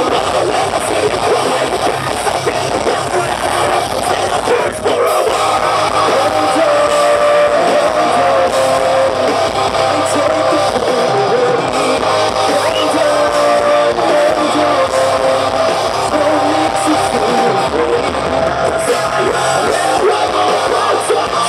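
Metalcore band playing live through a stage PA: electric guitars, drums and a singer, loud and continuous, heard from within the crowd. A brief break about five seconds in, then the band comes back in with a sustained melody.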